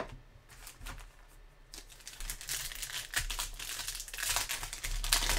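Foil wrapper of a trading-card pack crinkling as it is torn open and peeled back by hand: a sharp click at the start, then, from about two seconds in, a steady run of crackly crinkling.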